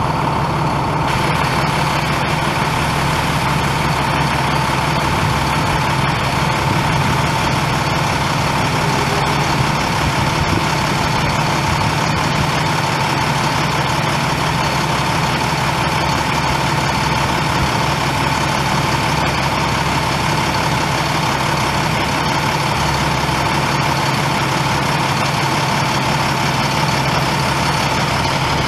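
International MaxxForce 10 9.3-litre inline-six turbo diesel in a 2008 International 7500 bucket truck, idling steadily, with a steady high whine over the engine note.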